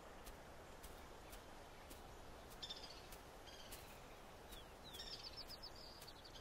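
Quiet outdoor ambience with faint, high bird chirps in two short bursts, about two and a half seconds in and again about five seconds in.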